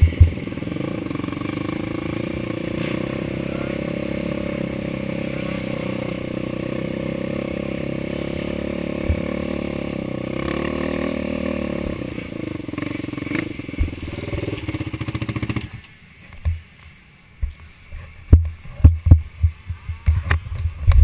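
Racing ATV engine running fairly steady, its pitch wavering a little, then cut off abruptly about three-quarters of the way through. After it stops come a run of sharp, irregular knocks and thumps, louder than the engine was.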